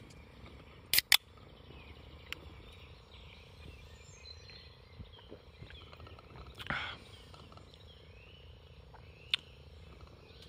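Quiet outdoor ambience with faint bird chirps throughout. Two sharp clicks come about a second in, and around six to seven seconds in there is a short sip from a drinks can.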